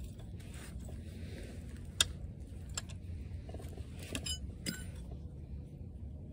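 Wrench working a cylinder-head nut loose on a Wisconsin V4 engine: a few scattered, sharp metallic clinks, two of them ringing briefly.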